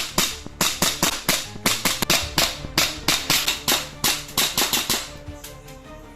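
VFC Stark Arms SA320 gas blowback airsoft pistol firing a rapid string of shots, about four a second, that stops about five seconds in, over background music.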